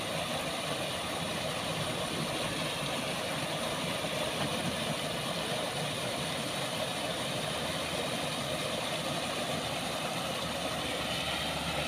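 Water pouring over a low concrete weir in a canal: a steady, unbroken rushing.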